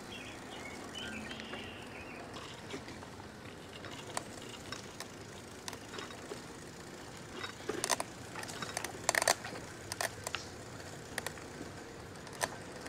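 Bicycle rolling along a trail: steady tyre and wind noise, with scattered clicks and rattles of the bike's parts that bunch into a loud cluster of clacks about two-thirds of the way through.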